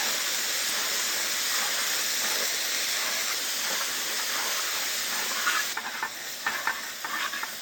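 Small onions with ginger and garlic paste sizzling in hot coconut oil in a large uruli, a steady hiss. Nearly six seconds in the hiss drops and stirring takes over, short scrapes against the pan.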